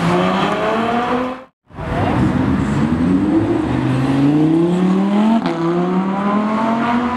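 Ferrari F12's V12 accelerating away, its pitch climbing, cut off about a second and a half in. Then a Lamborghini Huracán Spyder's V10 accelerates past, its pitch climbing through several quick upshifts.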